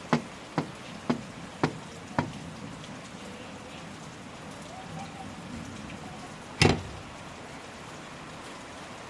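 Steady rain, broken in the first couple of seconds by five sharp knocks about two a second, then a single louder bang about two-thirds of the way through.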